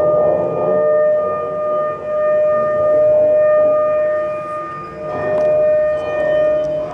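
A single long note held at one steady pitch, swelling and easing off in waves, from a live ensemble of saxophones, clarinet, strings and electronics. A few faint high clicks come in the second half.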